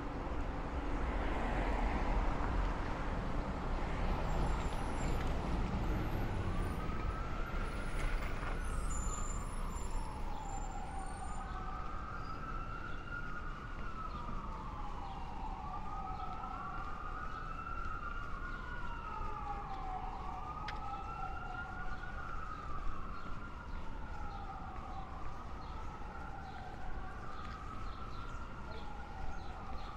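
Emergency vehicle siren wailing, rising and falling slowly again and again, coming in about a third of the way through over steady city street traffic noise.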